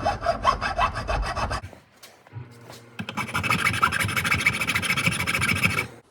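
Hand file rasping on the steel shank of a square-headed screw, filing flat spots so it won't spin in a drill chuck: quick strokes for about a second and a half, a pause, then a second bout from about three seconds in that stops suddenly near the end.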